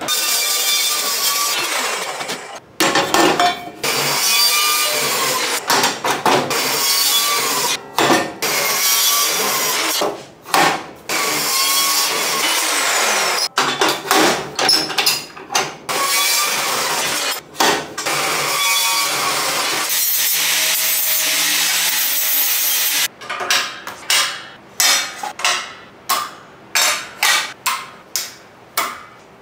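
DeWalt metal-cutting chop saw cutting through steel square tube, in a series of long cuts with short pauses between them. Near the end comes a quick run of short metallic clanks as steel tube and clamps are set down on a steel welding table.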